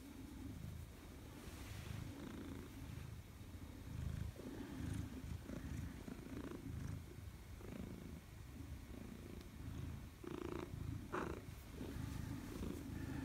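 A Maine Coon cat purring while being stroked, a low rumble swelling and easing with each breath. Near the end two short, brighter sounds cut in over the purr.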